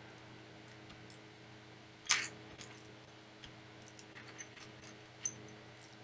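LEGO plastic pieces clicking as they are picked from a loose pile on a wooden table and handled: a sharp clack about two seconds in, another just past five seconds, and a few faint ticks between.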